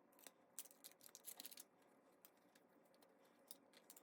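Near silence with a few faint, short clicks and crackles from the replacement glass back panel and its adhesive liner being handled, clustered between about half a second and a second and a half in, and again at the end.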